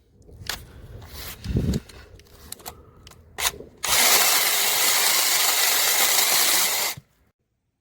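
Bosch EasyChain 18V-15-7 battery mini chainsaw with a brushless motor, running for about three seconds and then stopping abruptly, after a few knocks and clicks and a brief burst of the motor.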